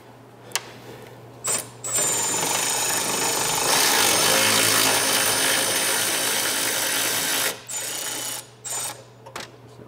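Cordless power tool spinning a 10 mm socket on an extension, backing out a grille bracket bolt. A brief burst about a second and a half in, then a long steady run of about five and a half seconds with a high whine, then two short bursts.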